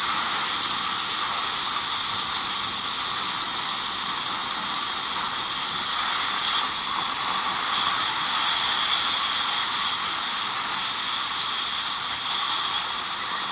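Steady hiss of running dental equipment.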